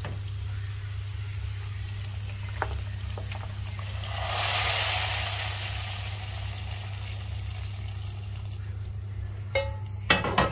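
Hot-oil tadka sizzling, with a louder burst of sizzle about four to five seconds in as it is poured from the frying pan into a pot of daal. A steady low hum runs underneath, and a few cookware clatters come near the end.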